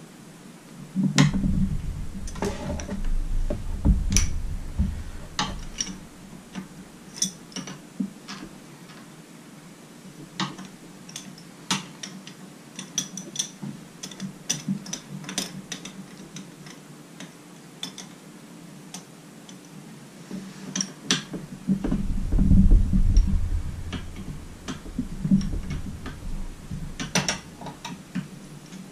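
A hand wrench working bolts on an outboard motor's carburetor: scattered metallic clicks and clinks, with low rumbling knocks about a second in and again about two-thirds of the way through.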